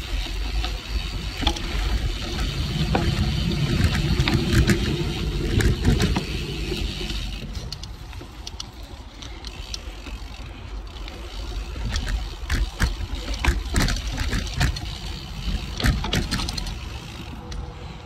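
Cervelo Aspero gravel bike on 47 mm tyres riding fast down a dirt singletrack: a steady rush of air and tyre noise, with many short clacks and rattles as the bike goes over bumps and roots. The rush is heaviest for the first seven seconds or so, then eases.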